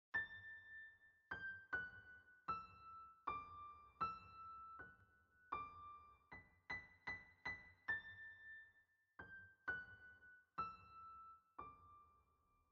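Background music: a slow melody of single high keyboard notes, each struck and left to ring. The last note is held near the end.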